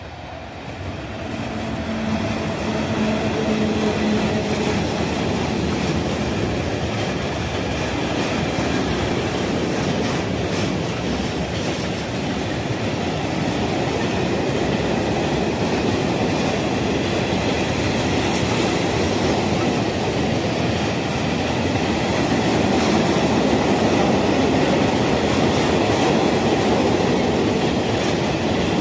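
Polish ET22 six-axle electric freight locomotive hauling a long train of tank wagons past: the sound rises in the first two seconds as the locomotive goes by with a low hum, then the wagons roll past with a steady rumble and clatter of wheels on the rails.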